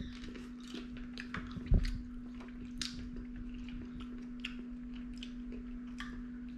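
Bean Boozled jelly beans being chewed: faint, irregular small clicks and squishes of mouths working, over a steady low hum, with one dull thump about two seconds in.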